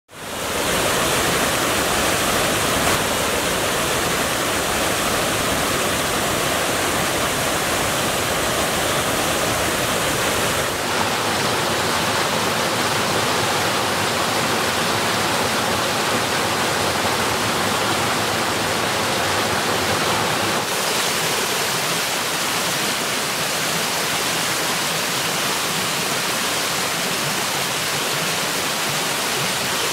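Steady rush of a waterfall cascading over rock ledges, fading in at the start. Its tone shifts abruptly twice, about a third and two-thirds of the way through.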